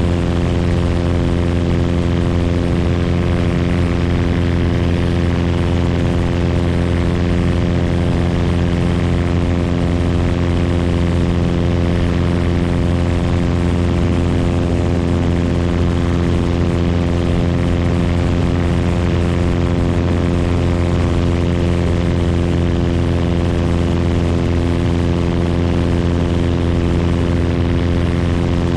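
Single-engine Cessna's piston engine and propeller running in flight: a loud, steady drone that holds one pitch throughout, with rushing air noise over it.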